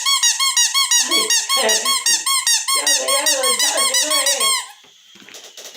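A squeaky ball toy being squeezed over and over, giving rapid high squeaks at about five a second that stop near the end. Lower voice-like sounds run beneath some of the squeaks.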